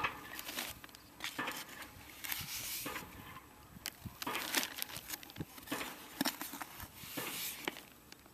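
A metal hand trowel scraping and scooping soil in a plastic bucket and tipping it into a plastic zip bag: a run of short, irregular scrapes, soil patter and plastic rustles.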